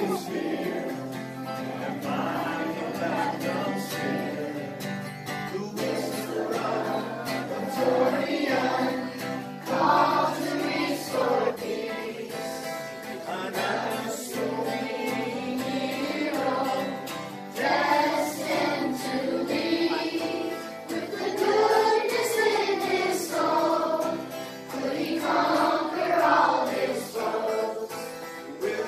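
A man strumming an acoustic guitar and singing a folk-style song, with a class of children singing along in unison.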